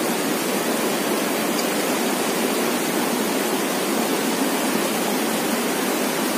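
Swift river rapids rushing over rocks, a steady, unbroken rush of water.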